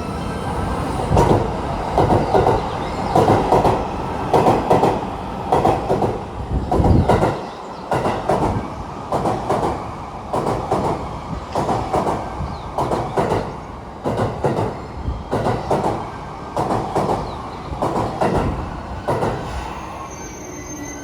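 Wheels of a passing E231 series and E233 series commuter electric train clacking over rail joints, the strikes coming in quick clusters about once a second over a steady rumble as car after car passes at moderate speed.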